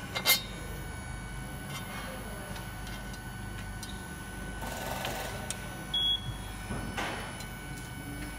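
Steady hum of an assembly line, with a sharp click just after the start and a short burst of hiss about five seconds in as a handheld powered screwdriver drives a screw into the aluminium street-light housing. A brief high beep follows about a second later.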